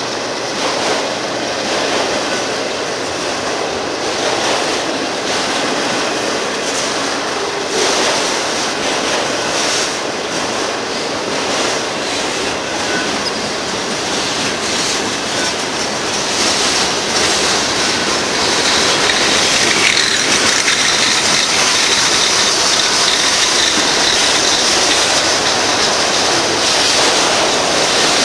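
Union Pacific freight cars rolling past, a steady clatter of steel wheels on the rails with repeated clicks. It grows louder about two-thirds of the way through, where a faint high wheel squeal joins in.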